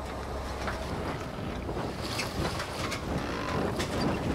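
Wind buffeting an outdoor microphone with a steady low rumble. From about two seconds in it grows louder and rougher, with scattered short clicks and rustles.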